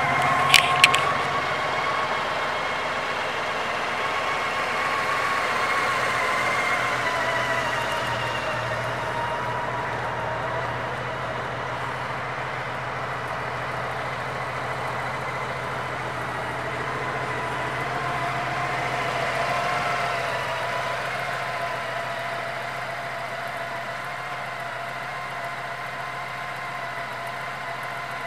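A 2005 Honda Gold Wing trike's flat-six engine idling steadily just after being started, its note settling slightly lower over the first several seconds. Two sharp clicks sound about half a second in.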